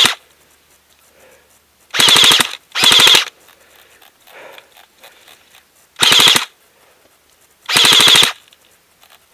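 Airsoft AKS-74U electric gun firing short full-auto bursts of about half a second each, five in all: one ending right at the start, two close together about two seconds in, and two more later.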